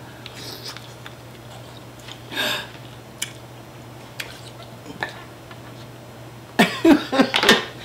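A few sharp clicks and a short breathy noise, then a loud, brief outburst of a person's voice near the end, like a cough or a laugh.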